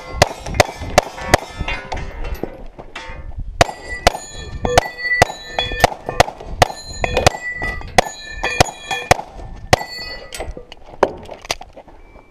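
Rapid pistol fire, several shots a second, with the steel targets ringing out in clangs after the hits. There is a short lull near the end.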